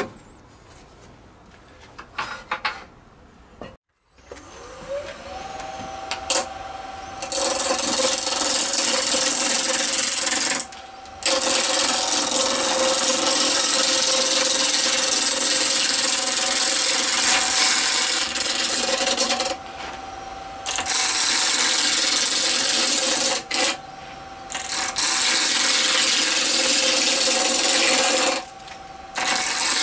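Wood lathe motor spinning up, its hum rising and settling about four seconds in. A turning tool then cuts the spinning resin-and-banksia-pod blank in long hissing passes, with short breaks between cuts.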